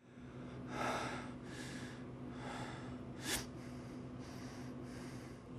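A person breathing heavily in faint, uneven breaths, with one sharp intake of breath about three seconds in, over a steady low electrical hum.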